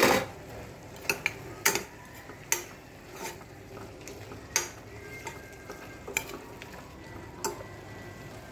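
Metal spoon stirring a thick mushroom masala in a steel pressure cooker pot, clacking and scraping against the pot at irregular intervals, the loudest clack right at the start. A faint steady sizzle of the frying mix runs underneath.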